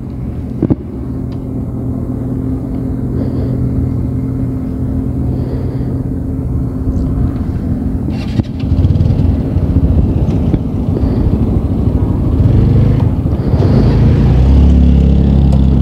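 Motorcycle engine idling steadily, then getting louder after a click a little past halfway and pulling away with a heavier low rumble near the end.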